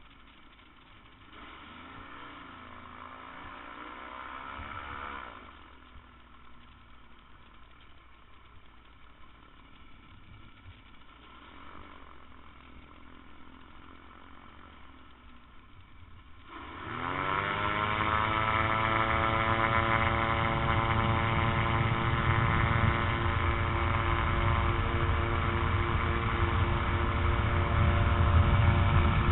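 A trike's Rotax 912 four-cylinder engine runs low at idle, swelling briefly a couple of seconds in, then is opened to full throttle about 17 seconds in: its pitch sweeps quickly upward and settles into a loud, steady full-power run for the takeoff and climb.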